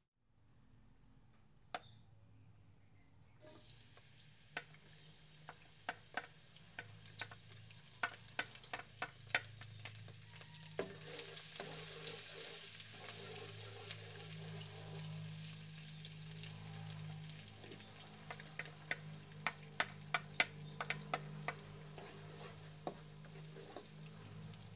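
Cooking oil sizzling in a non-stick wok, with scattered sharp crackling pops; the sizzle grows much stronger about eleven seconds in once chopped garlic is frying in it. A spatula stirs the garlic through the hot oil.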